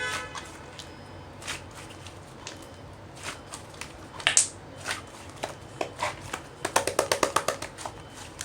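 White slime being pressed and pulled by hand, making scattered sticky clicks and pops. There is one louder pop about four seconds in and a quick run of crackling pops near the end.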